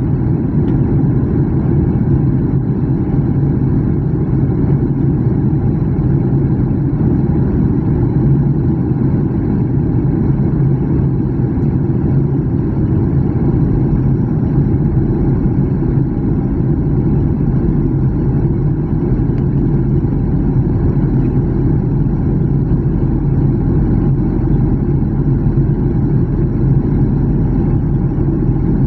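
Jet airliner cabin noise on the approach to landing: a steady low engine hum over the rushing of airflow, heard from inside the cabin.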